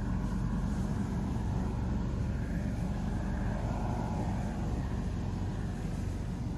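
Steady low rumble of distant road traffic, swelling slightly a little past halfway.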